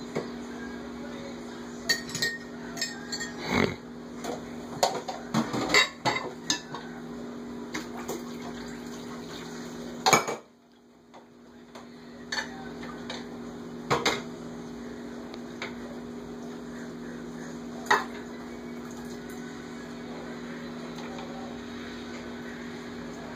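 Dishes and a cup clinking and knocking against each other in a kitchen sink as a small child handles them: a quick run of clinks in the first several seconds, one loud knock about ten seconds in, then a few scattered clinks. A steady low hum runs underneath, dropping out for a moment after the loud knock.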